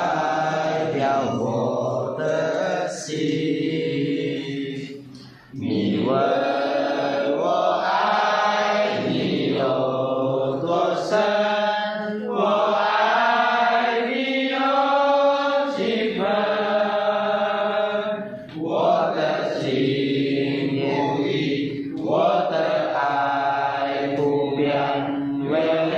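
A class of young men's voices chanting together in unison, long drawn-out syllables with short breaks about five and eighteen seconds in.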